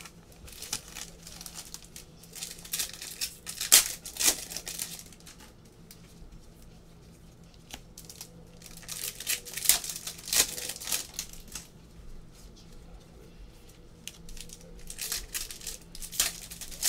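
Foil wrappers of basketball trading card packs being torn open and crinkled by hand, in three bouts of tearing and rustling with sharp crackles.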